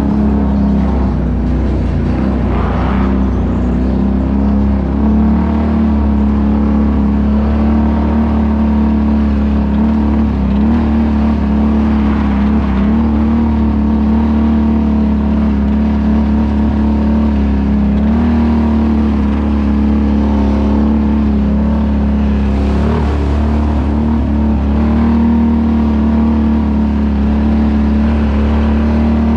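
Can-Am ATV engine running steadily at a fairly constant speed, heard close up, its pitch stepping up and down only slightly a few times.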